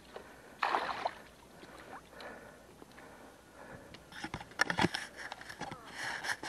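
Water splashing and sloshing as a landing net holding a freshly landed seabass is moved in shallow water, with a louder splash about half a second in. Near the end come a run of sharp knocks and splashes.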